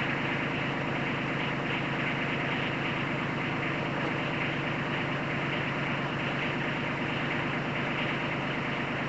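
Kubota B2320 compact tractor's three-cylinder diesel engine idling steadily.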